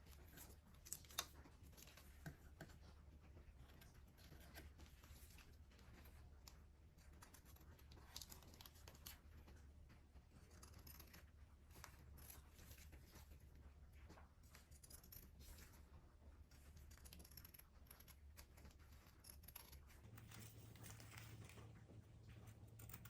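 Faint, scattered snips and rustles of scissors cutting fabric and adhesive tape, over a low steady hum.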